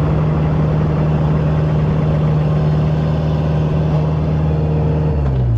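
An engine running at a steady speed, then throttling down with a falling pitch near the end.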